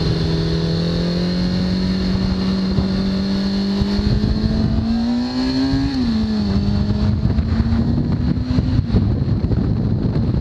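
2003 Kawasaki ZX-6R's inline-four running through a full Hindle titanium exhaust, revs climbing steadily under acceleration. About six seconds in the pitch drops sharply at an upshift, then starts climbing again, while wind noise builds near the end.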